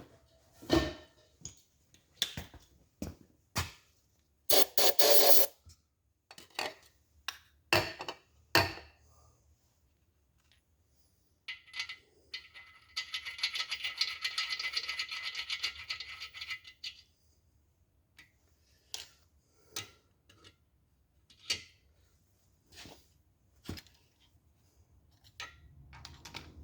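A thread tap being worked by hand into a water pump bolt hole in a 350 Chevrolet block: scattered metal clicks and scrapes of the tap and its wrench. A steady hiss lasts about four seconds midway.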